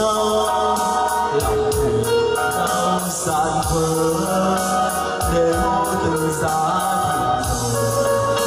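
A man singing a song into a handheld microphone, amplified, over an instrumental backing track.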